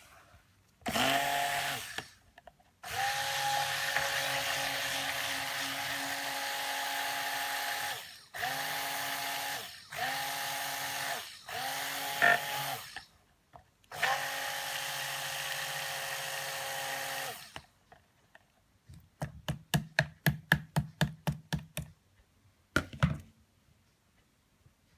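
Stick blender run in short bursts of one to four seconds in a plastic jug of cold-process soap batter, mixing the oils and lye-milk solution toward trace; its motor whirs at a steady pitch and stops and starts several times. Near the end comes a quick run of light knocks, several a second, for about three seconds.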